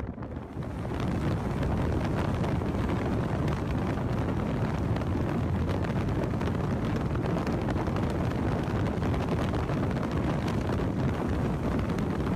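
Steady rushing wind buffeting the phone's microphone, heaviest in the low end with frequent small crackles, growing louder about a second in and then holding.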